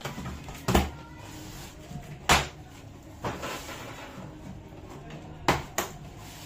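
Cardboard box and packaging being handled: four sharp knocks, two of them close together near the end, over a low rustle.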